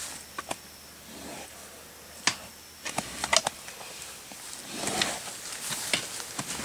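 A wild pig moving and rooting inside a wire cage trap: scattered sharp clicks and snaps at irregular intervals, a few bunched together about three seconds in, with a short rustle about five seconds in.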